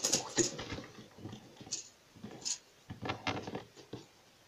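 Faint handling noise: a few short, scattered clicks and rustles as a hard plastic fishing lure and its tackle are handled.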